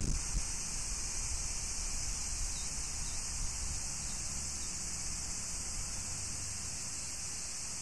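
Steady hiss with a low rumble underneath and no distinct events.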